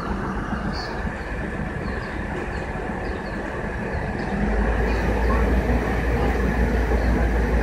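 Diesel engine of a Liebherr HS 895 HD crawler crane running steadily, growing louder with a deeper rumble about four and a half seconds in.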